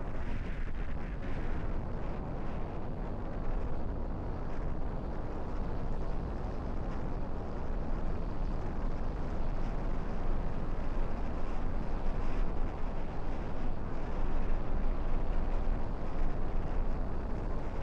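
Strong wind buffeting the microphone: a steady low rumble that swells and eases with the gusts.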